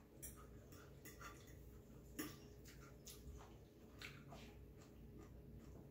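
Faint eating sounds: scattered soft clicks from chewing and from a metal fork and spoon twirling fettuccine, one click a little louder about two seconds in.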